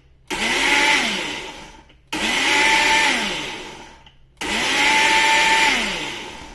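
Countertop blender pulsed three times, about two seconds each, whizzing peeled orange segments in water into pulpy juice. Each time the motor whine rises as it spins up and falls away as it stops.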